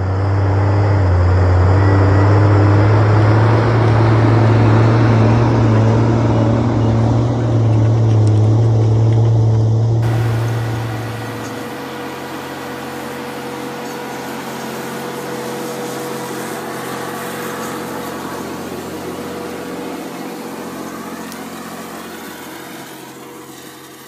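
Diesel engine of a heavy forestry skidder working under load as it pulls a heavy disc harrow through the soil. It is loud and close for about the first half, then after a cut a John Deere 948L skidder runs steadily and more quietly, fading out near the end.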